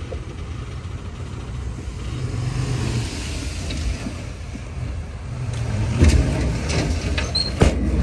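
Diesel engine of a heavy earthmoving machine running with a low rumble that swells about two seconds in and again shortly after five seconds, followed by several sharp knocks in the last two seconds.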